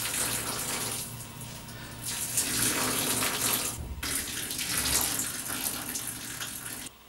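A stream of urine splashing into a bathtub, as a man pees standing. The splashing eases off around two seconds in, breaks briefly around four seconds, and stops abruptly near the end.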